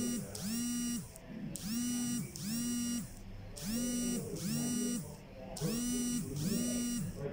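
A repeating alarm-like tone: pairs of short pitched blasts, each sliding up at the start and down at the end, the pair coming round about every two seconds.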